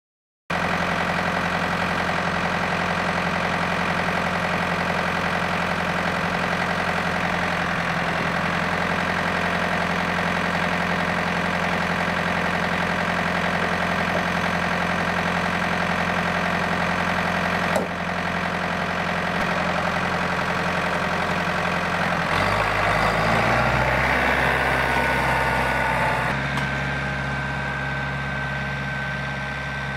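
John Deere 4600 tractor's three-cylinder diesel engine idling steadily, with one sharp click a little past halfway. Past two-thirds of the way the engine note shifts and rises as a tractor drives off.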